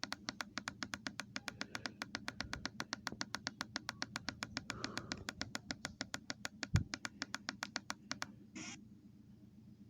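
A rapid, even train of sharp clicks, about seven a second, over a low hum; the clicking stops a little before the end, followed by a short burst of hiss.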